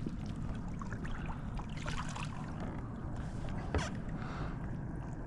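Steady low rumble of wind and water around a kayak, with faint splashes and one sharp knock about two-thirds of the way through.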